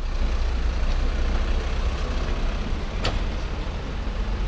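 Steady low rumble of a running vehicle, with a single sharp click about three seconds in.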